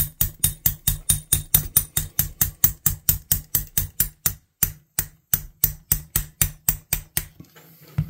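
Small hammer rapidly tapping a long steel pin, about four to five light metallic strikes a second, driving it through the scales and liners of a vintage Victorinox Fisherman Swiss Army knife. The tapping stops a little before the end.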